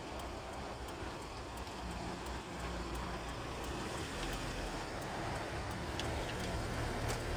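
A car's engine and tyre noise heard from inside the cabin while driving, a steady low hum that grows a little louder near the end.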